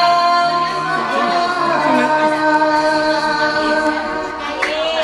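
A woman sings a slow ballad into a karaoke microphone over a backing track, holding a long note that fades near the end.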